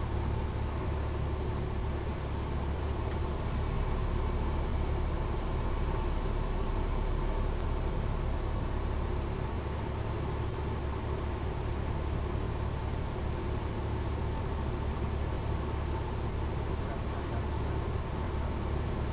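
Cessna 172P Skyhawk heard from inside the cabin: its four-cylinder Lycoming engine and propeller droning steadily in flight.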